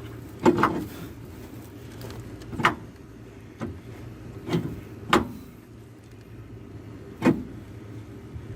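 Metal parts and tools knocking and clinking, about six separate sharp strokes, while a track bar and castle nut are worked into place on a Jeep Cherokee's front axle. A steady low hum runs underneath.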